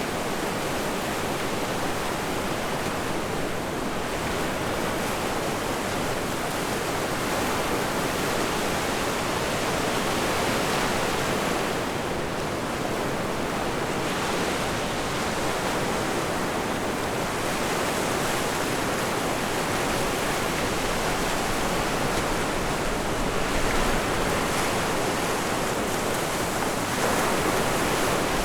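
Steady rush of ocean surf and wind on a beach, swelling and easing slowly.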